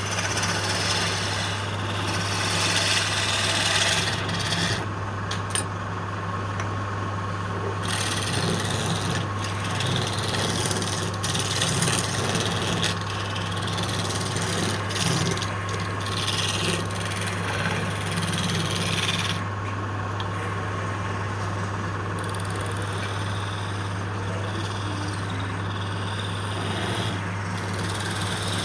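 Wood lathe running with a steady hum while the spinning wood is being worked. A scraping, rubbing noise from the work comes and goes in stretches of a few seconds.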